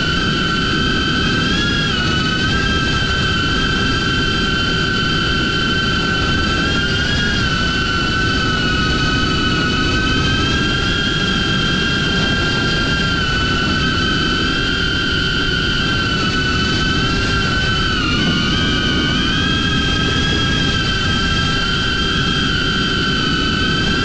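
DJI Avata FPV drone's Axis C175 motors and propellers whining steadily in flight, the pitch wavering slightly with throttle and dipping briefly about eighteen seconds in, over a low rushing of wind.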